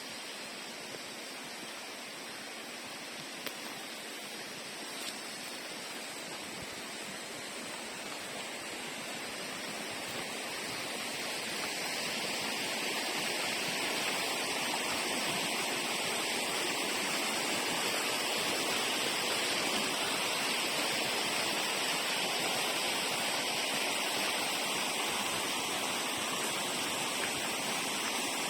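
River water rushing over rocks, a steady rush that grows louder partway through and then holds.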